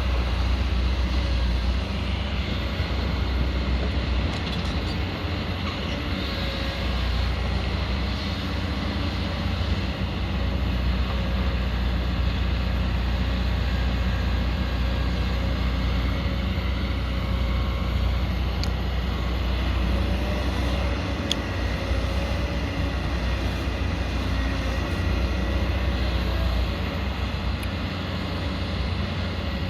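Diesel engine of a 22-tonne-class hydraulic excavator running steadily under working load, with a deep low rumble.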